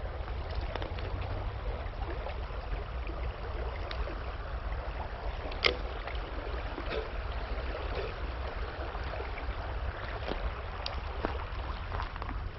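River water running steadily over a low rumble, with scattered small clicks and one sharper click about six seconds in.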